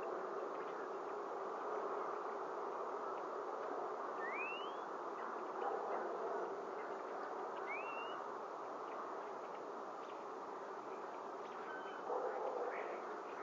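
Steady buzzing outdoor noise, with two short rising bird whistles about four and eight seconds in.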